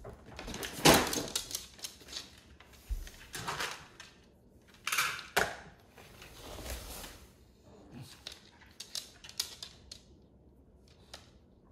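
Dry dog kibble rattling and clattering in a plastic storage bin and plastic scoop, with a loud burst about a second in and more around five seconds. From about eight seconds on, scattered clicks of kibble in a plastic bowl as an English bulldog eats.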